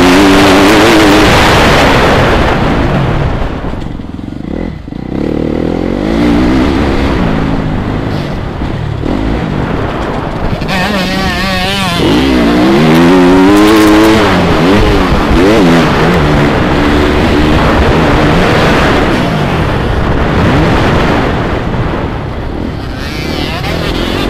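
TM MX 250 Fi motocross bike's single-cylinder engine revving up and down as it is ridden hard around the track, with the throttle shut off briefly about four seconds in and strong acceleration around twelve seconds in.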